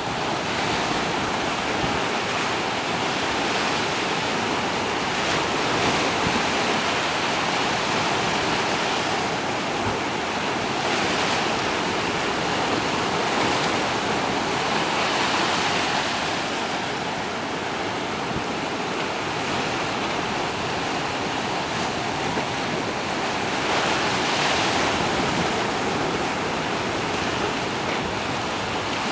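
Small waves washing in over sand and rocks in the shallows: a steady rush of surf that swells and eases every few seconds.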